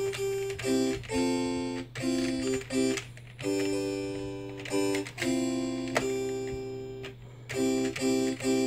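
Sound Blaster Live! EMU10k1 sound card's synthesizer playing instrument notes triggered from a computer keyboard. The notes come in short groups of several at once, with two longer held chords in the middle, over a steady low hum.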